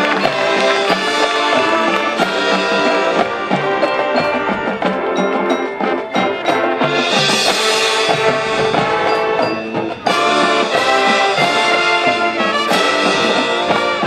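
High school marching band playing its field show: brass section over percussion, with a brief drop about ten seconds in before the full band comes back in.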